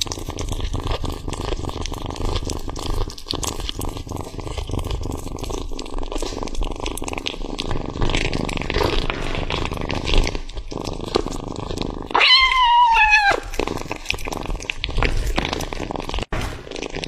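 Kitten eating raw meat: a steady low rumbling with many small chewing clicks. About twelve seconds in it gives one high, slightly falling mew lasting about a second.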